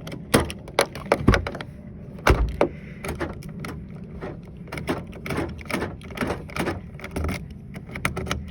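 A 2003 Chevy Tahoe's newly replaced exterior door handle and door lock being worked: a run of sharp mechanical clicks and clunks, the loudest in the first three seconds, lighter clicks after.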